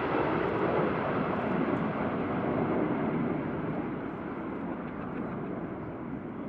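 Jet noise of a Boeing 747-400 airliner flying in close formation with the Red Arrows' BAe Hawk jets: a steady rumble that grows fainter and duller as the formation draws away.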